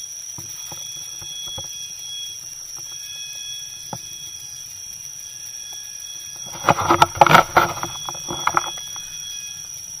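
Steady high-pitched whine of rainforest insects, holding one shrill tone with fainter tones under it. About seven seconds in, a short louder burst of noise cuts across it.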